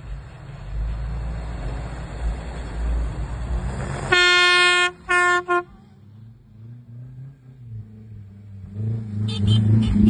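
Off-road vehicle's car horn: one long honk about four seconds in, followed quickly by two short toots. Around it, 4x4 engines run on the snowy track with a low rumble, and an engine revs up near the end.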